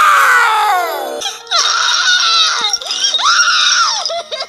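A woman's cartoon-character voice screaming and wailing in long, high-pitched cries. The first cry falls in pitch and ends about a second in, and two more rise and fall after it.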